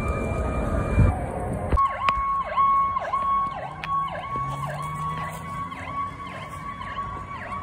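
Fire truck siren. For the first couple of seconds there is heavy vehicle rumble with a held siren tone. Then a siren takes over that holds a high note and dips sharply down and back up about twice a second, growing slightly fainter toward the end.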